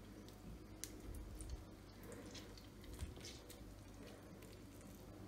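Faint wet squelching and dripping as a lemon is squeezed by hand over raw chicken pieces in a foil tray, with a few soft ticks.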